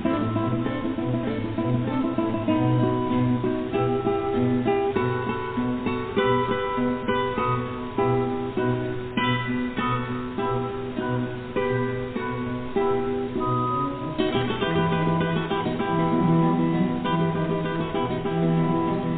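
Background music: acoustic guitar playing, plucked and strummed.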